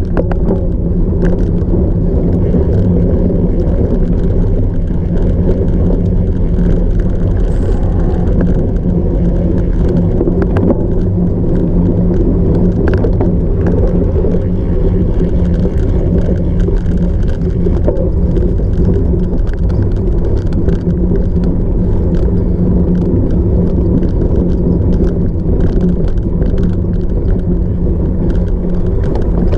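Cyclocross bike being ridden over rough off-road ground: a steady loud rumble of wind and tyres on the microphone, with frequent small rattles and clicks from the bike.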